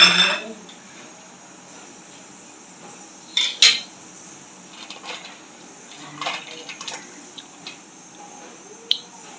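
Metal utensils clinking and knocking against pots and dishes while the biryani is layered and garnished: a loud pair of clinks about three and a half seconds in, then a few lighter scattered clinks.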